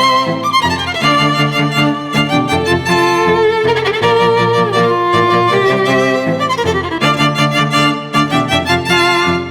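Background music led by violin, with rhythmic accompaniment and gliding string phrases.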